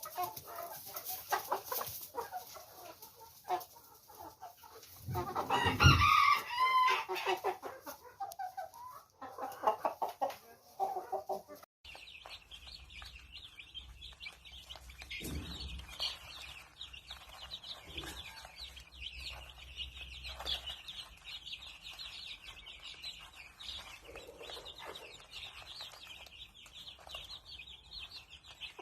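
Chickens: a rooster crows once, loudly, about six seconds in, among scattered clucking. After a cut about halfway through, fainter clucking continues over a steady high-pitched background chirring.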